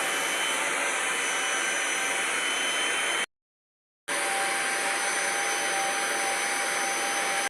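Vacuum cleaner motor running steadily with a high whine. The sound cuts out completely about three seconds in and comes back at full level a second later.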